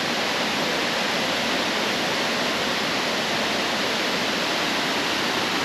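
Steady rush of flowing river water, an even hiss.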